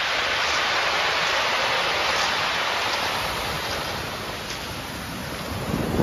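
Ocean surf washing over a pebble beach: a steady hiss of foaming water that swells early and eases off. Near the end, wind buffets the microphone with a low rumble.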